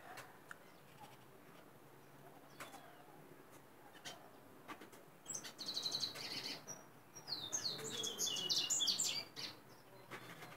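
Caged corbatita, a Sporophila seedeater kept as a caller bird, singing: a short run of quick high notes about five seconds in, then a longer, denser phrase of rapid twittering notes lasting about two seconds. A few faint ticks come before the song.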